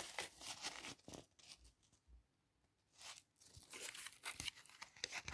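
Faint rustling and crinkling of a paper note being handled, in short scratchy bursts with a brief quiet spell around the middle.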